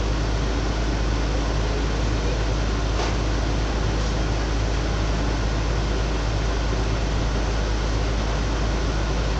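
Heavy diesel construction machinery running steadily, a continuous engine hum with noise over it, and a faint tap about three seconds in.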